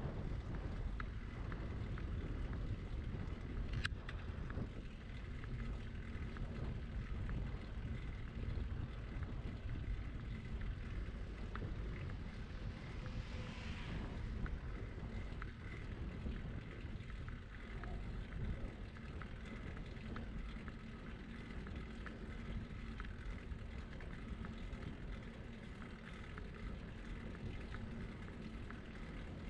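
Wind on the microphone of a moving bicycle, a steady low rumble with road noise underneath. One sharp click about four seconds in, and a brief hiss a little before halfway.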